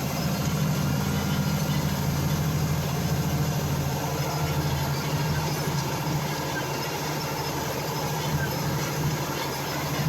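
Farm machinery engine running steadily, a low even drone.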